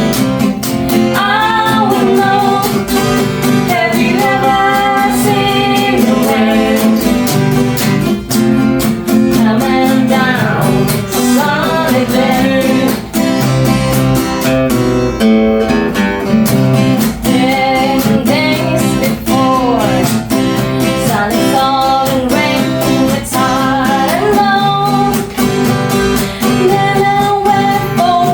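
Background music: a song with a singing voice over strummed acoustic guitar and a steady beat.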